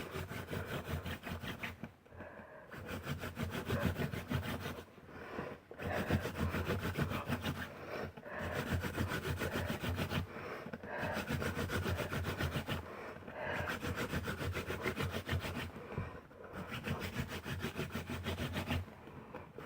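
Cattail spindle spinning back and forth in a Western red cedar hearthboard under the palms: a fast, rhythmic dry rubbing in runs of two to three seconds, broken by short pauses about seven times as the hands go back to the top. It is the hand drill working down into the board, building the friction heat and smoke that make an ember.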